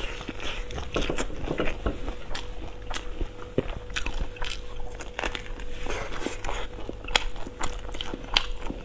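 Eating sounds: bites into glazed fried sausage and chewing, with many irregular crunchy clicks.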